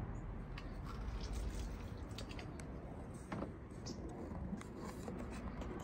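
Hand-held lime squeezer pressing fresh limes, making a few faint, scattered clicks over a steady low background rumble.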